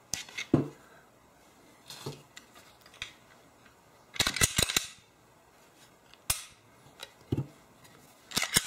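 Glock 19 pistol being cleared by hand: sharp clicks and snaps as its action and slide are worked. They come singly, with a quick cluster about four seconds in and another near the end.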